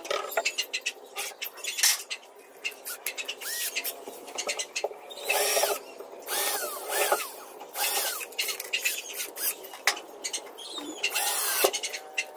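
Cordless drill running in several short bursts, whining up and down with each squeeze of the trigger as it drives screws through the plywood cabinet side into the partitions.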